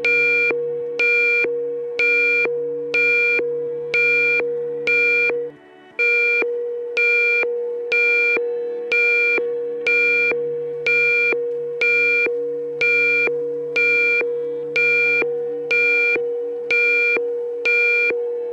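Recreated emergency alert alarm: an electronic beep that strikes about once a second and fades after each strike, over a steady lower drone. The drone and beeps briefly cut out about five and a half seconds in, then resume.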